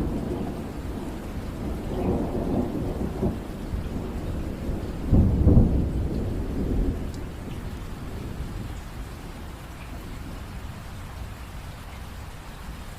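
Steady rain with rolling thunder: low rumbles swell and ebb, loudest about five seconds in, then die away, leaving rain alone.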